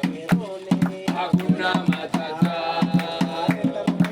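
Voices singing a song over a repeated drum beat.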